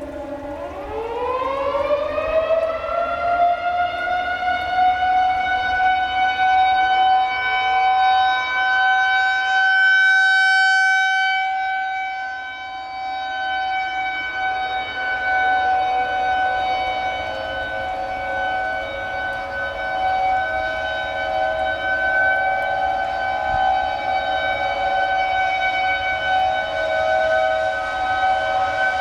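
Single-tone outdoor tornado warning siren winding up from a low pitch to a steady note over the first few seconds, then holding it while the level swells and fades slowly. A second, slightly lower steady siren tone joins about halfway through.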